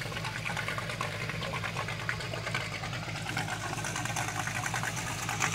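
Suzuki Samurai's small four-cylinder engine idling steadily, with a fast, even ticking beat.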